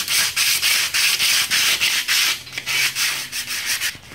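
Sandpaper on a wooden hand block rubbing over primed steel of a rear axle housing in quick back-and-forth strokes, a scratchy hiss that eases off near the end. The primer is being sanded down until bare metal starts to show, leaving primer filling the rust pits.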